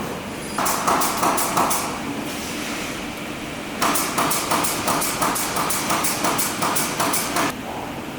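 Workshop tool or machine making rapid, regular sharp knocks, about four a second, in two runs, the second longer, over a steady background hum.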